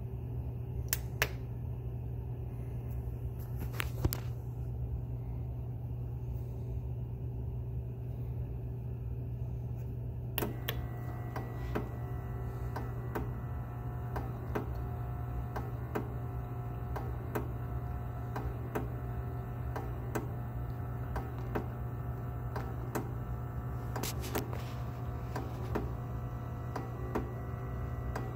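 Bunn commercial coffee brewer with a steady low hum and a couple of sharp switch clicks near the start. From about ten seconds in, the machine ticks steadily, roughly one or two ticks a second, each with a short ringing tone.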